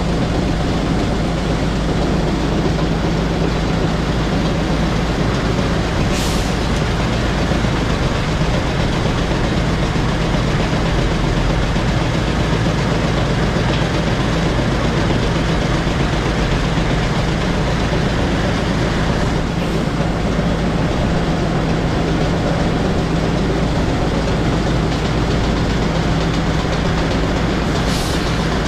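Tractor engine running steadily, driving a grain auger that carries dry distillers grain from a hopper trailer into a bin, with a low, even hum. A light knock about six seconds in and another near the end.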